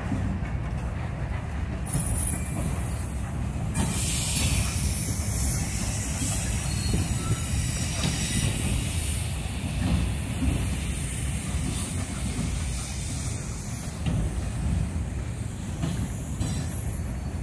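Freight train's boxcars rolling past at close range: a steady low rumble of steel wheels on the rails, with a high hissing screech from the wheels over it, strongest from about four to nine seconds in.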